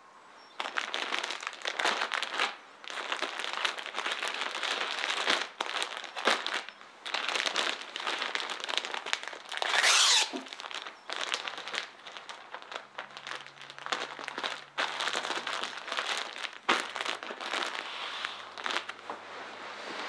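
Clear plastic bags crinkling and rustling as they are handled and opened, with a louder, sharper rustle about halfway through.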